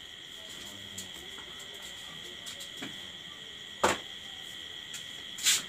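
Handling of the monitor's cardboard box and styrofoam packing: a sharp knock about four seconds in and a short rustle near the end. A steady high-pitched chirring runs underneath.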